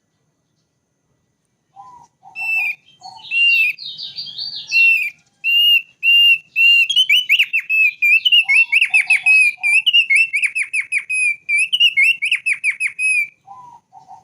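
Thick-billed heleia (opior paruh tebal) singing: a long, fast run of repeated high whistled notes that starts about two seconds in, turns quicker and louder with rapid downward-sweeping notes from about halfway, and stops shortly before the end. Short clusters of lower notes come in three times, at the start of the song, in the middle and at the end.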